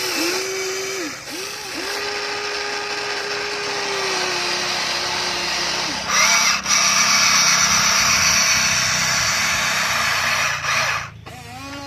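Toy remote-control excavator's small electric motors whining as the arm and bucket move, the pitch dipping and rising at each start and stop. About six seconds in, a louder, harsher motor run begins as the excavator drives on its tracks and turns. It drops off near the end, leaving a few short whines.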